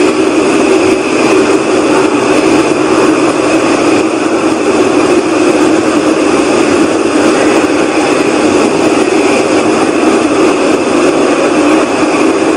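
A loud, steady whooshing rumble from the sky, 'a mix between a whoosh and a rumble', one of the so-called strange sky sounds; the recorder insists it is not aircraft noise.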